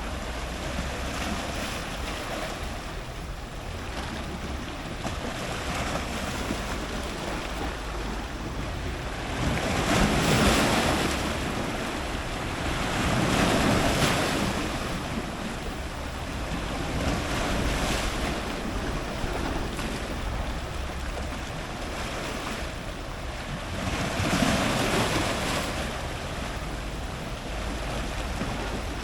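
Ocean surf breaking on rocks: a continuous rushing wash, with louder waves cresting about 10, 14 and 25 seconds in.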